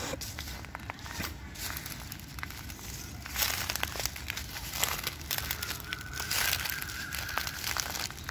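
Dry fallen leaves crunching and crackling underfoot in irregular bursts as someone walks over a thick leaf litter. A steady high tone sounds for about two seconds in the second half.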